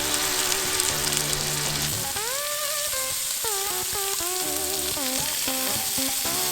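Ground pork and bacon slider patties sizzling steadily as they fry in olive oil in a pan. From about two seconds in, a melody plays over it.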